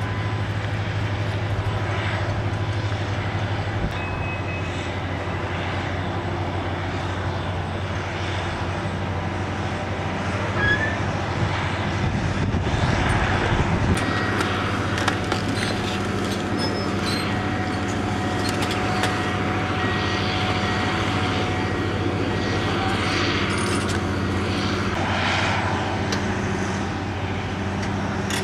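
Heavy diesel construction machinery running with a steady drone, with a run of metallic clanks and knocks about halfway through.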